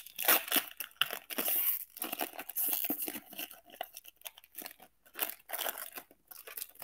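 Foil wrapper of a 1998 Topps Chrome football card pack being torn open and crinkled by hand: a run of crackling tears and rustles, heaviest in the first three seconds, with more crinkling near the end.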